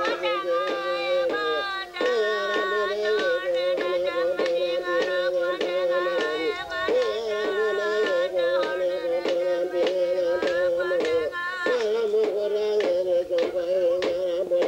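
Tiwi Kulama ceremonial singing: a wavering sung chant held on long notes, over a quick, steady percussive beat.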